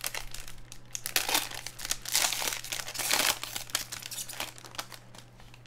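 Crinkly trading-card pack wrappers being torn open and crumpled by hand, in irregular bursts that die down about four seconds in.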